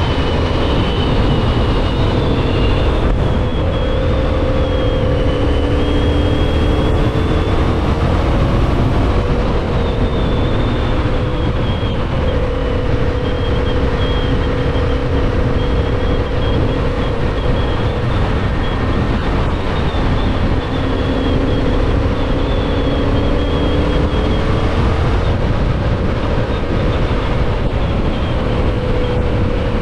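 Yamaha MT-07's parallel-twin engine running at a steady road-speed cruise, its pitch drifting gently up and down with small throttle changes, under heavy wind rush on the microphone.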